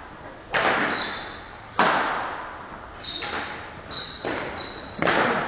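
Badminton rackets striking a shuttlecock in a rally, about six sharp hits at uneven intervals, each ringing out in the echo of a large sports hall.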